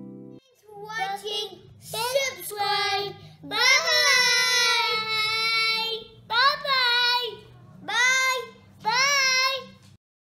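A young child's high voice in sing-song calls: one long drawn-out note, then three shorter calls that rise and fall in pitch.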